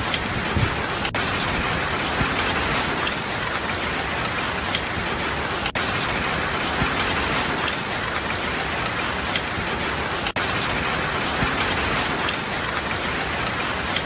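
Heavy rain pouring onto asphalt and parked cars: a dense, steady hiss with scattered drops ticking through it.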